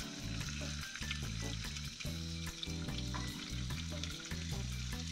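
Chopped bacon frying in oil in a small frying pan on a gas stove, sizzling steadily and spitting oil: the small pan is running too hot because the flame can't be turned down enough.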